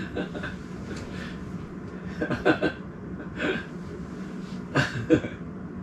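A few brief, faint voice sounds, short utterances or laughs with long gaps between them, over a low steady hum.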